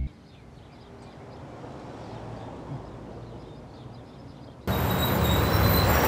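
Quiet room tone with a few faint high chirps, then an abrupt cut, about two-thirds of the way in, to loud street noise with a bus's engine running at a stop.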